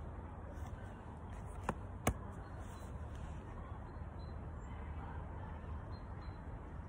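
Steady low outdoor background rumble, with two sharp clicks about two seconds in, under half a second apart, the second louder.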